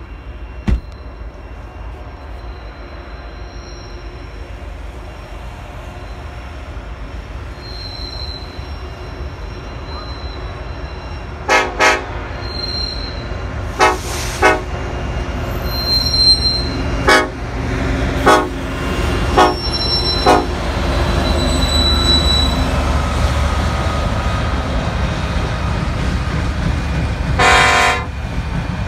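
BNSF diesel freight locomotives approaching and passing, their low rumble building steadily. A string of short horn toots comes in the middle, and a longer horn blast near the end.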